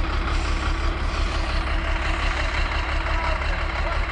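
Diesel engine of a chained road grader running steadily at idle, a loud, even low rumble.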